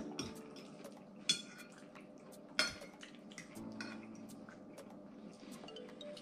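A metal fork clinking and scraping against a bowl while eating. Two clinks stand out, a little over a second in and about two and a half seconds in, among lighter ticks.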